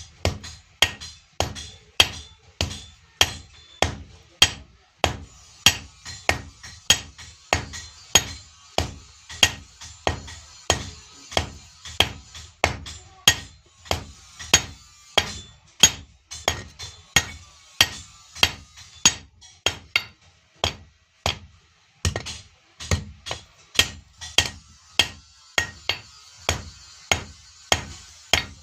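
Blacksmith's hand hammer striking iron on an anvil, forging a blade: steady, even blows about two a second, each with a short metallic ring.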